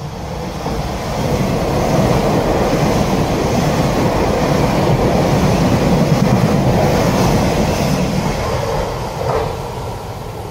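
Express electric train passing through a station at speed: its running and wheel noise builds over the first two seconds, holds, then fades as it moves away near the end.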